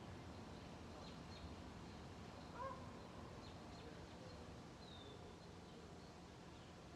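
Near silence: faint background hum and hiss, with a few faint, short, high chirps and one faint small sound about two and a half seconds in.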